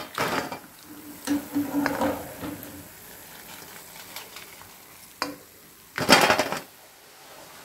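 Crisp deep-fried wheat-flour diamond chips tipped from a wire skimmer onto a steel plate, clattering in several short bursts with the plate ringing faintly; the loudest batch lands near the end. The hard, dry rattle is the sound that shows the chips are fried crisp.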